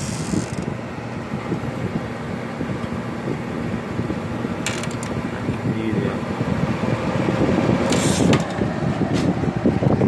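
Late-1960s Sears Coldspot 18,600 BTU window air conditioner running and cooling, its new Fasco fan motor on the low setting: a steady rush of air with a low hum. Two short hissing rushes come about five and eight seconds in.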